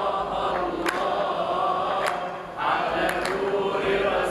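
A group of voices chanting an Islamic praise song for the Prophet (madih) in unison, with sharp handclaps about once a second. There is a short break between sung lines about two and a half seconds in.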